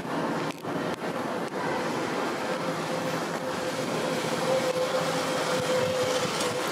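Steady city street ambience: a continuous noisy rumble, with a faint held tone from about two seconds in. The level dips briefly twice in the first second and a half.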